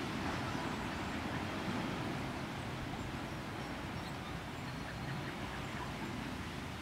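Steady outdoor background noise, mostly a low rumble, with a few faint short high chirps or squeaks near the middle.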